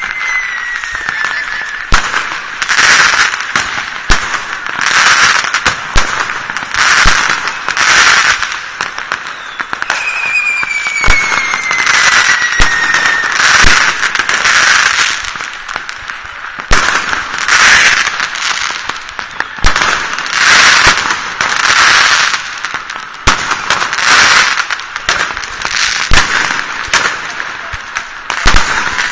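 Fireworks and firecrackers going off: a dense run of sharp bangs and crackling bursts, about one a second, with two long whistles that slide slowly down in pitch, one at the start and one about ten seconds in.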